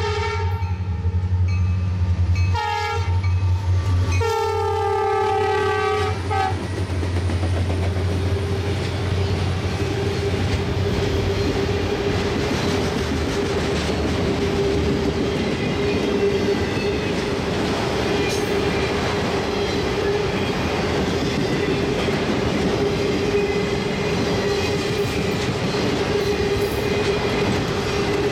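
Freight locomotive air horn blowing a chord: the end of one blast, a short blast, then a longer one, as the lead diesel locomotives pass with a low engine drone. Then a long string of autorack freight cars rolls by with steady wheel clatter on the rails and a held whining tone.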